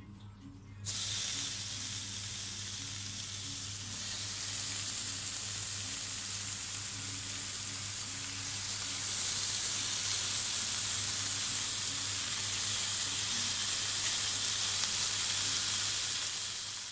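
Raw pork belly slices sizzling in a hot nonstick frying pan. The sizzle starts about a second in and gets louder in steps as more slices are laid in.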